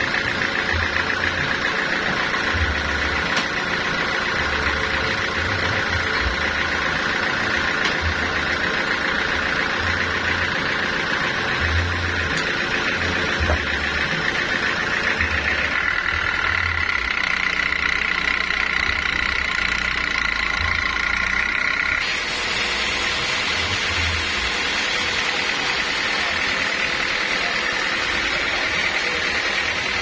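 Stationary engine of a band sawmill running steadily, driving the saw through belts and pulleys, with a steady high whine over the engine's low pulsing. The sound shifts abruptly twice, about halfway and two-thirds of the way through.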